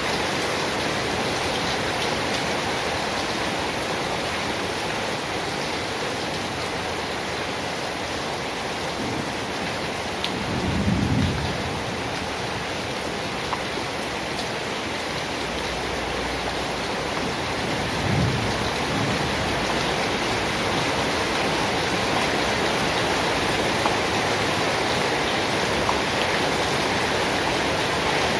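Steady rain falling, an even hiss of drops, with two short low rumbles, the louder about a third of the way in and a fainter one about two-thirds in.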